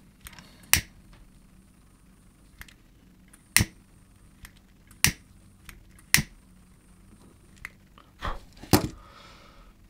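Disposable flint lighter being flicked: half a dozen sharp clicks, a second or more apart, with two close together near the end.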